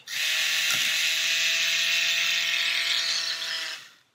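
Battery-operated Master Tools paint mixer running at its single speed, its small motor whining steadily as the paddle spins in a jar of water to clean off paint. It stops near the end.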